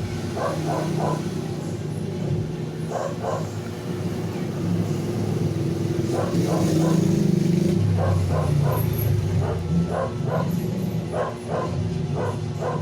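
A dog barking again and again, in clusters of short barks, over a steady low engine-like rumble.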